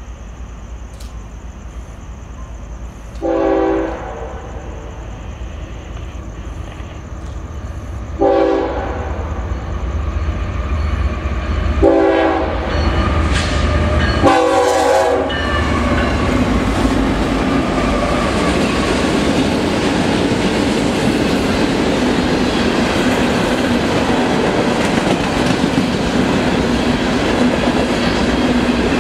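Diesel freight locomotive's air horn sounding four blasts in a long-long-short-long pattern as the train approaches, over a growing engine rumble. Then the locomotives and a long line of freight cars roll past with a loud, steady clatter of wheels on the rails.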